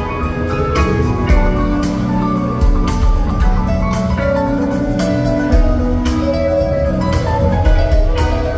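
Live rock band playing an instrumental jam, with electric guitars, keyboard and a drum kit keeping a steady beat.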